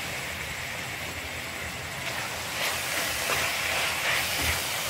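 Grated bottle gourd and mawa mixture sizzling in a metal kadhai as it is roasted nearly dry. About halfway through, a steel spoon starts stirring and scraping it around the pan, which makes the sound louder and rougher.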